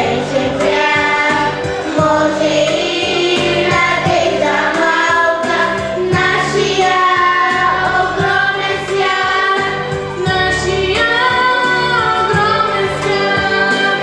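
Children's choir singing a Christmas song into stage microphones over a backing track with a steady beat.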